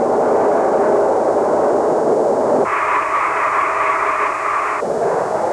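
Hiss and static of an open two-way radio channel between transmissions. About halfway through, the hiss turns brighter and higher for roughly two seconds, then drops back.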